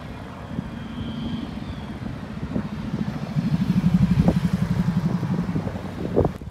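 A nearby engine running with a low, rapidly pulsing note, getting louder toward the middle and then cut off suddenly near the end.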